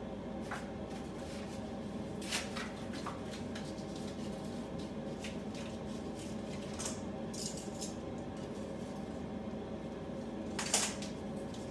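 Scattered light clinks and clatters of dishes and bamboo skewers as marinated meat is threaded onto skewers by hand, with the loudest clatter near the end. A steady kitchen exhaust fan hum runs underneath.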